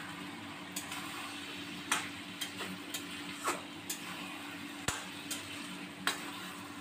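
Metal spatula stirring chicken in a metal kadai over a steady frying sizzle, scraping and clacking against the pan at irregular moments, roughly once every half second to a second.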